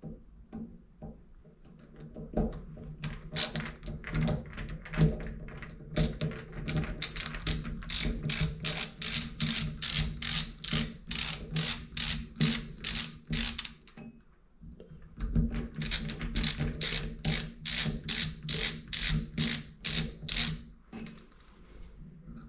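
Ratchet wrench clicking in two steady runs of about two to three clicks a second, with a short pause between them.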